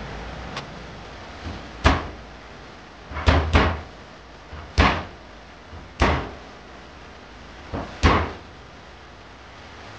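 A series of sharp knocks, six loud ones and a few softer ones, at irregular intervals of one to two seconds, each dying away quickly, over a steady hiss.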